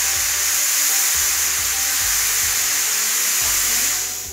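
Steam hissing steadily out of the lid vents of a Fissler Vitavit pressure cooker during a quick pressure release, with the release button on the handle held in. The hiss fades away near the end.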